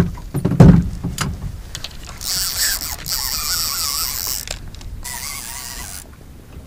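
Multiplier fishing reel being wound hard against a hooked fish, its gears whirring and clicking in two spells of winding. A few heavy knocks come in the first second.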